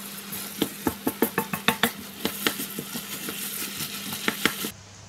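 Fried rice sizzling in a wok, stirred with a wooden spatula that makes a quick, irregular run of scrapes and knocks against the pan. The sound cuts off suddenly near the end.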